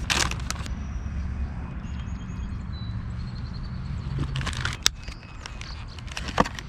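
A few sharp knocks and clicks from gear being handled in a kayak, in three short clusters: at the very start, about four and a half seconds in, and near the end. A steady low rumble runs underneath.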